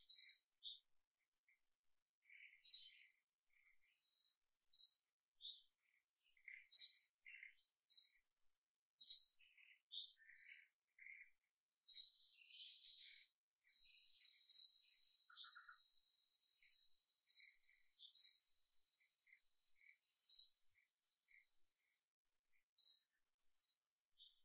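Small birds chirping: short, high-pitched notes repeating irregularly, about one every one to two seconds, over a faint, steady insect drone.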